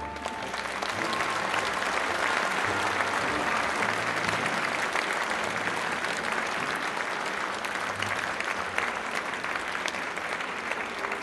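Theatre audience applauding as the orchestra's last note dies away at the very start; the clapping swells over the first couple of seconds and then holds steady.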